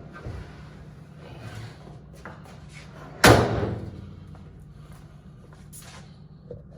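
Light knocks and handling noises, then one loud slam about three seconds in that rings briefly as it fades, over a steady low hum.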